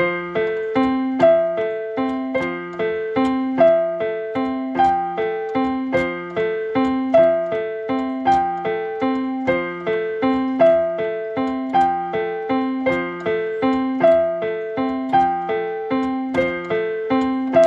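Outro music: a piano-like keyboard playing a repeating figure of single notes at a steady pace, with a stronger note about every second and a bit.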